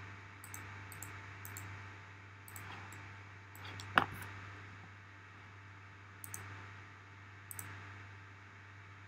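Scattered short clicks of a computer mouse and keyboard over a steady low hum. The loudest click comes about four seconds in.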